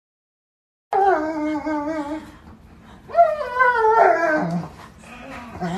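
A dog howling and whining in an excited greeting of its owner arriving home: two long wavering cries, the first starting about a second in and sliding down in pitch, the second about two seconds later rising and then falling.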